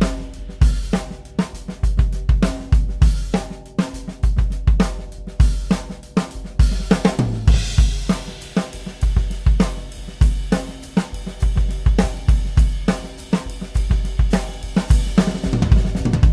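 Jenkins-Martin Blaemire Series drum kit played in a steady groove of bass drum, snare and hi-hat. The drums ring out with clear pitched tones after each hit, and a brighter cymbal wash swells up about halfway through.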